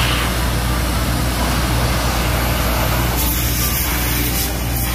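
Engine of site machinery running steadily under a loud, even hiss: the noise of the crew cleaning dust and dirt out from under the rebar of the mat foundation.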